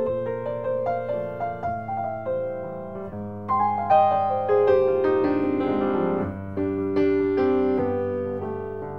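Background piano music: a slow melody of single notes and chords, each struck and left to fade.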